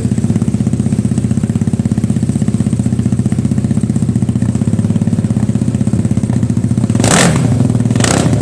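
Honda CB motorcycle with a two-cylinder engine running at a steady, evenly pulsing idle, then blipped about seven seconds in and again near the end, two short louder surges.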